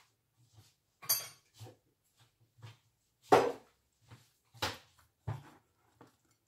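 Metal kitchen utensils clinking and knocking against dishes, about seven separate short clinks spread over several seconds, some ringing briefly, the loudest about a third of the way in.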